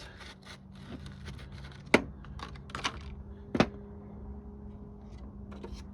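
Light clicking and tapping of small hard parts being handled, with two sharper clicks, about two seconds and three and a half seconds in, over a faint steady hum.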